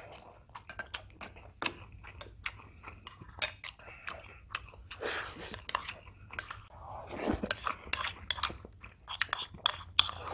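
Close-miked chewing and wet mouth sounds of someone eating rice mixed with soybean-paste stew, with a spoon and chopsticks clicking against a small bowl many times.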